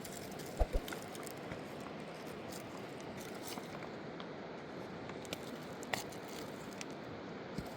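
A river rushing steadily, with a few faint clicks and knocks on top.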